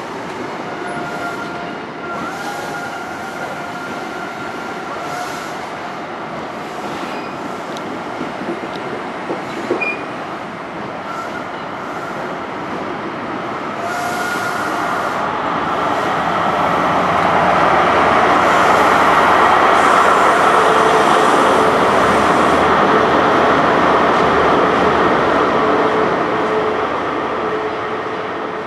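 Great Western Railway High Speed Train, a Class 43 diesel power car set, pulling out and moving away. Its running noise grows louder and fuller over the second half as the rear power car passes, then begins to fade near the end. High thin squealing tones come and go in the first half.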